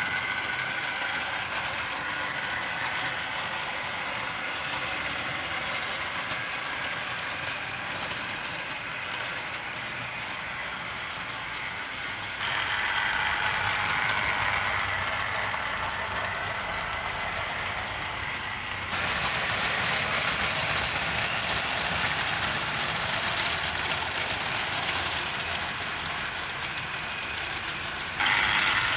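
Tri-ang OO gauge Princess-class model locomotives running with rakes of old Tri-ang coaches: a steady rattling whir of the motors and the coaches clattering along the track. The noise comes from the coaches still running on their original Tri-ang wheels. It gets abruptly louder about 12 s in, again about 19 s in, and briefly near the end.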